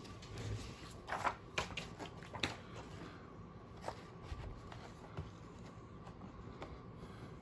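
WorkLion six-hole desktop punch pressed down through a few sheets of planner paper. Several short sharp clicks and paper scrapes come between about one and two and a half seconds in, with one more click near four seconds, then faint paper handling.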